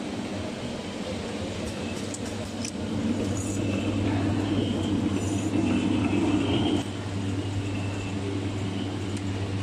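Automatic can seaming machine running a test with aluminium cans on its conveyor: a steady motor hum that grows louder about three seconds in and drops back a little before seven seconds, with a few light clicks.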